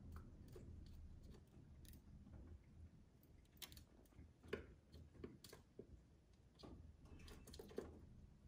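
Rock pigeons pecking seed from a bowl on a stone window ledge: faint, irregular sharp taps of beaks, a few clicks every second or so over a low hum.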